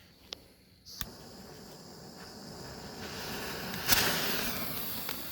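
Blue lance firework catching about a second in and burning with a hiss that slowly builds, with one sharp pop a little before the end.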